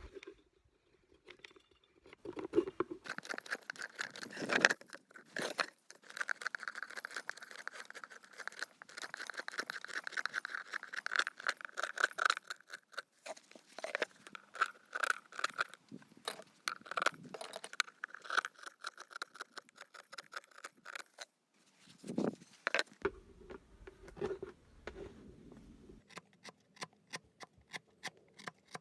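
Hand tool scraping and cutting wood in a run of short, repeated strokes, with a steady ring under them for most of the run; near the end quieter, quick regular ticks follow.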